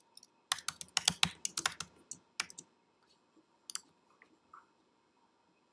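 Computer keyboard being typed on: a quick run of about a dozen keystrokes entering a password, then one more click about a second later.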